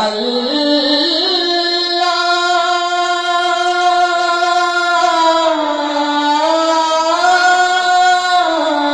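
A single high voice singing an Islamic song (gojol) unaccompanied. It holds long drawn-out notes without words, the pitch stepping slowly up and down. The voice comes in suddenly right at the start.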